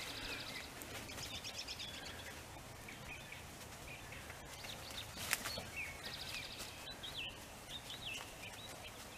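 Wild birds singing faintly: two short rapid trills and several brief whistled chirps over a steady low background rumble, with a sharp click about five seconds in.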